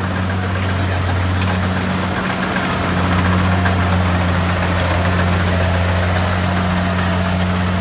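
Kubota combine harvester's diesel engine running steadily, a low drone that grows a little louder about three seconds in.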